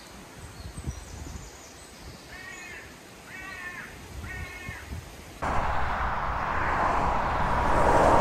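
A bird gives three harsh calls, about a second apart, over a quiet woodland background. About five seconds in, the sound cuts abruptly to loud road traffic on a dual carriageway, with a lorry passing that grows louder toward the end.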